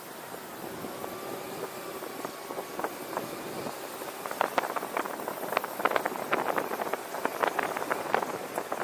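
A car driving on city streets: steady road and traffic noise, with dense, irregular crackling clicks starting about four seconds in.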